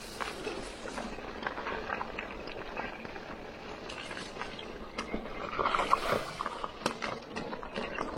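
Bicycle ridden over a rough, muddy trail: the tyres crunch on the ground and the bike rattles with many small knocks, and there is a louder stretch of crunching a little past halfway.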